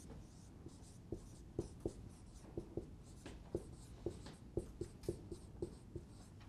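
Dry-erase marker writing on a whiteboard: an uneven run of faint, short taps and strokes as the letters are formed.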